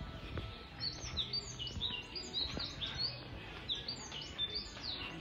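Birds chirping: many short, high calls overlapping in quick succession, starting about a second in.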